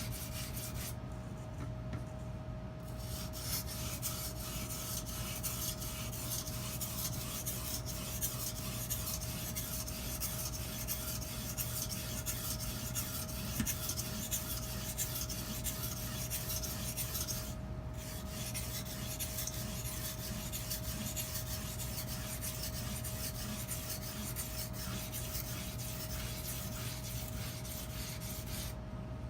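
Edge Pro Apex 220-grit sharpening stone scraping along a steel butcher knife's edge in continuous rasping strokes, raising a burr on the blade. The strokes stop briefly about a second in and again around eighteen seconds in.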